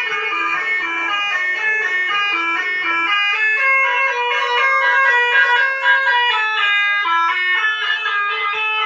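Bus telolet horn playing a fast melodic tune, its notes stepping up and down in quick succession with no pause.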